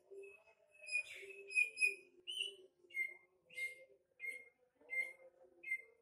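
Female cucak ijo (green leafbird) calling: a quick run of whistled notes in the first two seconds, then short, sharp chirps repeated about every two-thirds of a second.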